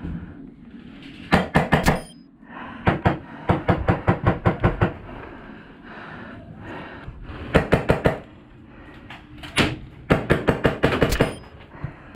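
Airsoft rifle firing several bursts of rapid shots, about seven a second, with short pauses between the bursts and one single shot in the middle.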